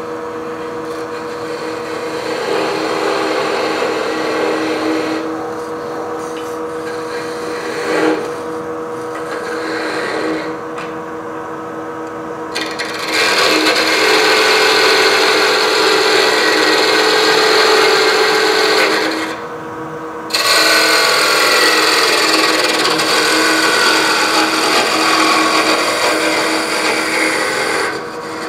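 Wood lathe running with a steady hum while a turning tool cuts the spinning wood. The cutting hiss comes in passes and is loudest in two long stretches from about halfway through, with a brief break between them when the tool comes off the wood.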